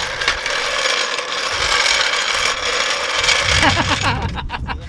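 Steel floor jack rolling on its casters across asphalt, a loud steady grinding rattle that stops about four seconds in. A few clunks follow as the jack is set down by the wheel.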